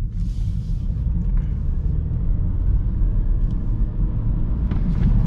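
Inside the cabin of a BMW 320i (F30) on a wet road: the turbocharged four-cylinder engine and road noise make a steady low rumble as the car is driven for another slide attempt.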